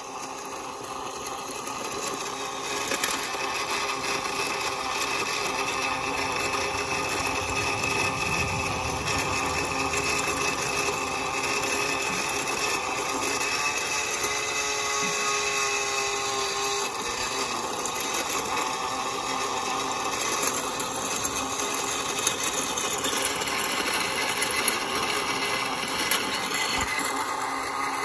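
Greenworks 80V cordless brushless tiller running, its electric motor whining steadily as the tines churn through soil and thick tree roots. The motor's pitch wavers about halfway through as it takes load.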